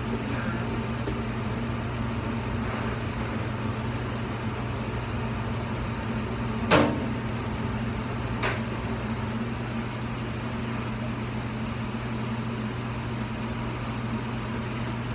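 A steady, low machine hum, like an appliance or fan running. A sharp knock cuts through it about halfway, and a fainter click follows a second and a half later.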